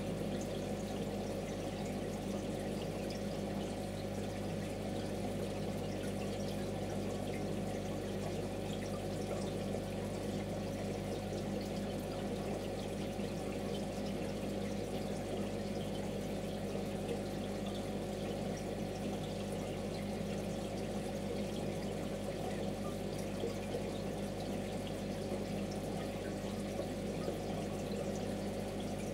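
Aquarium water trickling steadily, as from a running filter, over a low steady hum.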